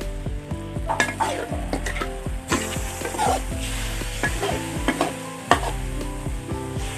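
Pork sizzling in oil in a wok while a metal ladle stirs it, with about nine sharp scrapes and clinks of metal on the wok. Steady low tones that change pitch in steps run underneath.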